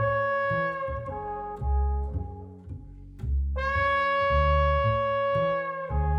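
Instrumental jazz: alto saxophone and trombone play sustained notes over a moving double bass line. One long held horn note starts about halfway through and stops just before the end.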